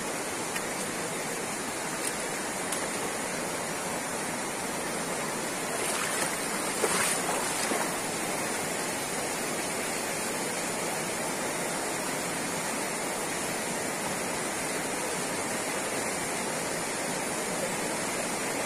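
Steady rush of a shallow, fast river running over rocks in rapids, with a brief louder swell about seven seconds in.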